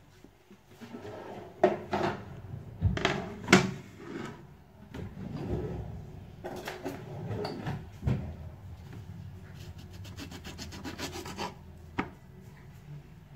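Dishes and a plastic cutting board set down on a countertop with several knocks, then a knife sawing through an orange on the plastic board in a quick run of rasping strokes, ending in a sharp tap of the blade on the board.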